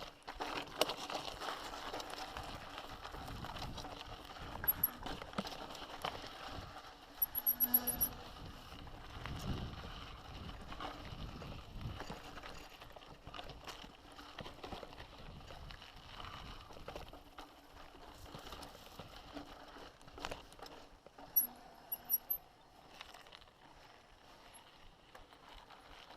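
Mountain bike being ridden over a rough, rocky trail: tyre noise with irregular rattles and knocks, the loudest knocks about five, seven to eight and twenty-one seconds in.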